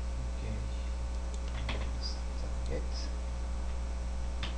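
Steady electrical hum with a few scattered computer keyboard clicks.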